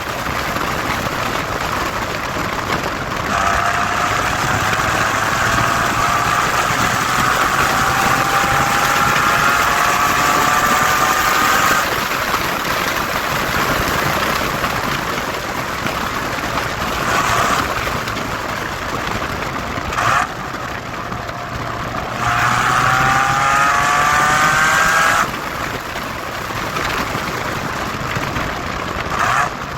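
Mitsubishi FTO GPvR's 2.0-litre 6A12 MIVEC V6 accelerating hard, its pitch climbing steadily through a long pull of several seconds. It then runs at a lower, steadier note before a second, shorter rising pull near the end.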